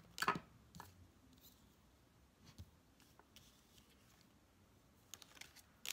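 Tarot cards being handled on a tabletop: a few short slaps and slides of card on card, the loudest about a quarter second in and another cluster near the end, with quiet in between.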